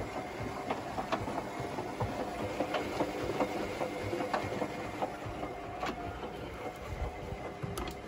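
Hotpoint WMXTF742 washing machine running a wash, its drum turning the sudsy load: a steady motor hum with uneven clicks and knocks.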